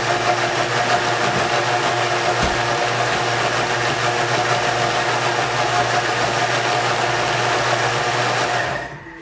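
Thermomix food processor running at speed 9, its blades pureeing cooked vegetables into stock paste: a loud, steady whirring hum that winds down and stops near the end.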